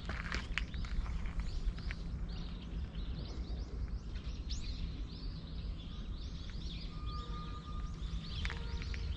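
Small birds chirping repeatedly in quick short notes, over a steady low rumble; a couple of footsteps crunch on gravel just after the start.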